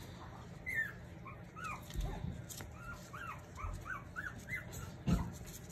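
Dog whimpering: a string of about a dozen short, high cries, each rising and falling in pitch, with a few dull thumps, the loudest near the end.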